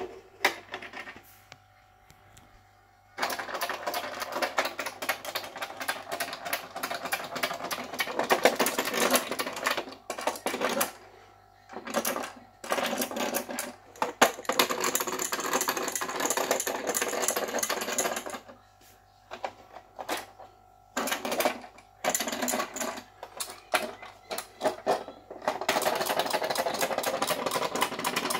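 Matchbox Shufflie toy animals clattering as they shuffle along the plastic playset track: a fast mechanical rattle that runs for several seconds at a time, stops, and starts again several times.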